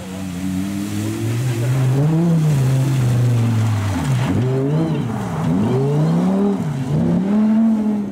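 Lamborghini Gallardo rally car's V10 engine at hard throttle, its note climbing and then dropping sharply and climbing again three times, about a second and a half apart, as it shifts and lifts. For the first few seconds, water spray from driving through a deep puddle hisses over the engine.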